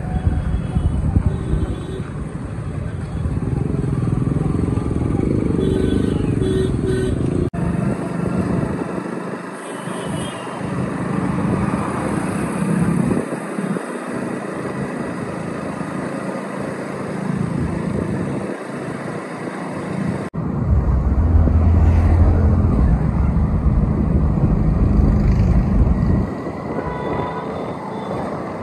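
Motorcycle riding through town traffic at low-to-moderate speed: engine and road noise under heavy wind buffeting on the handlebar-mounted microphone. The sound changes abruptly twice.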